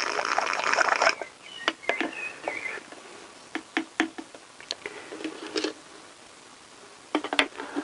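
Plastic siphon tube sucking brake fluid out of a motorcycle brake master-cylinder reservoir: a hissing slurp for about the first second as it draws up fluid and air. Then a few short squeaks and light plastic clicks and taps as the tube and bottle are handled.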